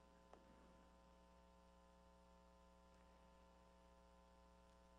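Near silence: a faint steady electrical hum, with one faint click about a third of a second in.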